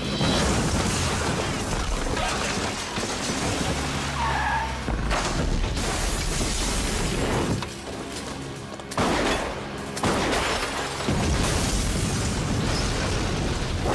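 Film action sound mix: a burning Blazer crashing through warehouse glass-paneled doors, with glass shattering and several sudden crashes over a dramatic music score.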